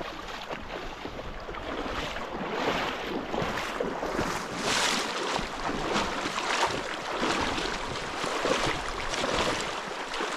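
Waders sloshing and splashing through a shallow, stony river, with the water rushing around the legs as someone wades steadily on.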